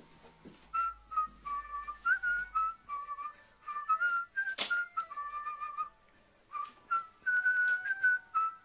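Background music: a whistled tune of short held notes stepping up and down. One sharp tap sounds about halfway through.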